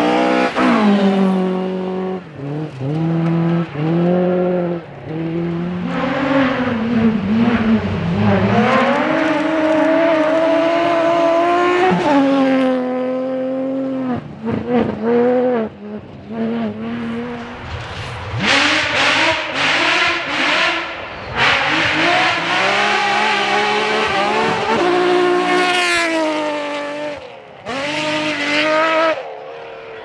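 Rally car on a gravel special stage driven flat out, its engine revving hard and climbing in pitch, then dropping sharply again and again as it shifts through the gears. The engine stays loud with a long high-revving stretch in the second half, broken by short lifts off the throttle.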